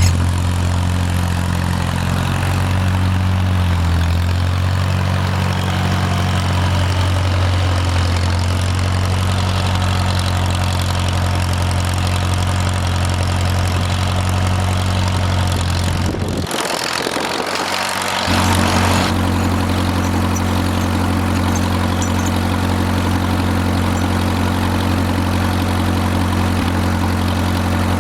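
Farmall M tractor's four-cylinder engine idling steadily while warming up, with a brief rushing noise about two-thirds of the way through as the engine hum drops away for a couple of seconds.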